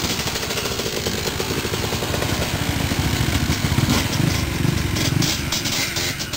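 Motorcycle engine running with a fast, even firing beat, with a few brief surges of throttle after about four seconds.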